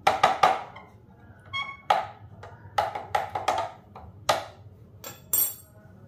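Small hammer tapping on a wooden bird cage frame: about ten sharp wooden knocks in irregular clusters.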